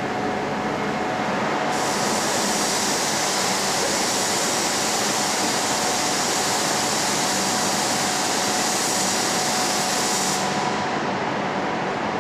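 Renfe Cercanías Civia electric train at the platform: steady mechanical running noise with a constant whine. A strong hiss cuts in about two seconds in and stops abruptly about two seconds before the end.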